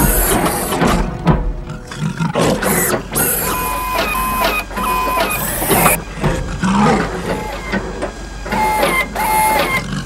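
Action-film soundtrack: robotic servo whirs and short electronic tones that step up and down in pitch, with bursts of mechanical noise over the film score.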